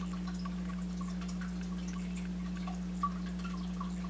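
Steady low electrical hum, with faint scattered ticks from a plastic-wrapped pack of vacuum bags being held and turned, and a slightly louder click about three seconds in.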